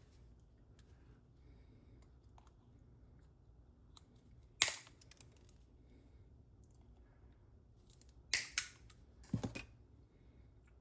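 Cutters clipping off the protruding ends left by a plastic-weld repair: one sharp snip about four and a half seconds in, then two close together a little after eight seconds and one more about a second later.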